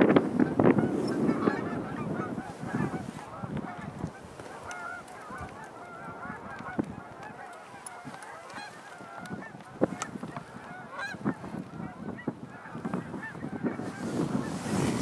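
A large flock of Canada geese honking in flight, many calls overlapping; the calling is loudest near the start and near the end.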